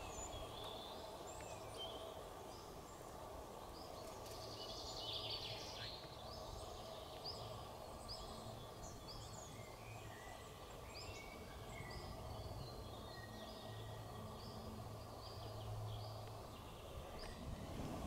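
Birds chirping and calling, faint and scattered, over a steady low background hum.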